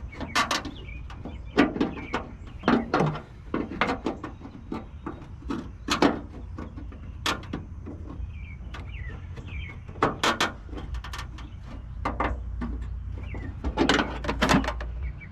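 Socket wrench clicking and clinking irregularly as it tightens a running-light housing fastener in a cramped spot, with sharp single knocks and short clusters of clicks.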